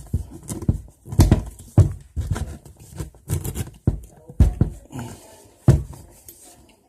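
A kitchen knife being forced down through a hard butternut squash, making irregular heavy thuds, about ten in six seconds.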